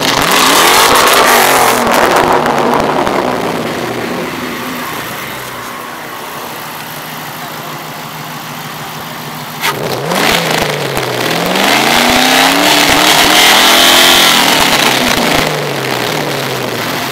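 Ford Mustang engine revving: a loud rev at the start falls away over several seconds, then about ten seconds in the engine jumps suddenly, climbs to a held high rev and drops back near the end.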